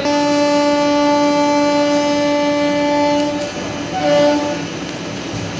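Indian Railways locomotive horn sounding one long, steady blast of about three and a half seconds, then a shorter blast at a slightly different pitch about four seconds in, over the running noise of the passenger coaches.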